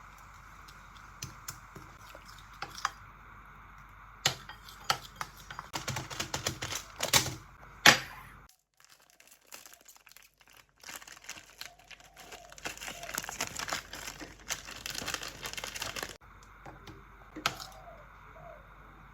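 Crinkling, rustling handling noises with scattered sharp clicks and taps, in two busy stretches. A loud sharp crack comes about eight seconds in, and a brief hush follows.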